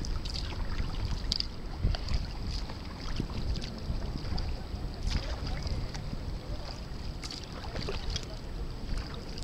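Kayak paddle blades dipping, splashing and dripping into river water at irregular moments, over wind rumbling on the microphone.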